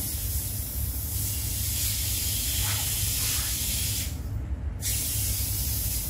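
Water spraying steadily from a handheld chrome-plated plastic shower head, a continuous soft hiss of fine spray; the hiss briefly thins for under a second about four seconds in.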